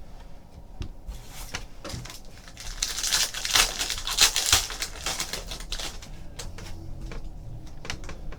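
A trading-card pack wrapper being torn open and crinkled, loudest from about two and a half to five and a half seconds in, with light clicks and taps of cards being handled around it.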